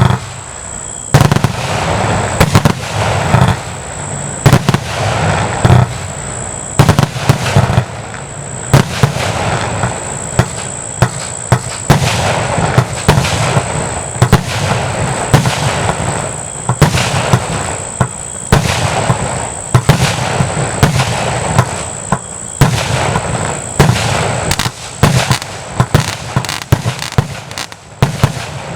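A 240-shot compound firework cake firing continuously, with dozens of sharp shots and bangs in quick, uneven succession over a constant rush of bursting noise.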